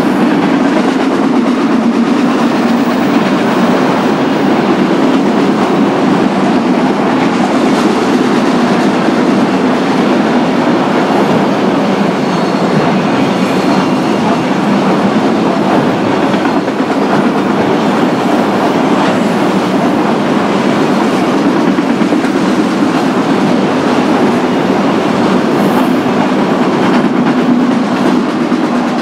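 Freight train of autorack cars passing close by: a steady, loud rumble of steel wheels rolling over the rails.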